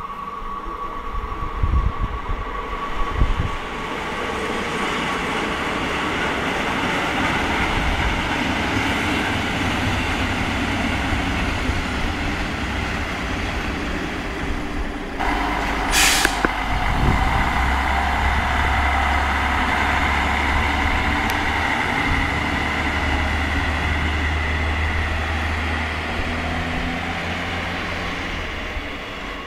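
ČD class 810 diesel railcar running through the station, with a short loud hiss of compressed air from its brakes about halfway through. After the hiss, its underfloor diesel engine drones low and steady.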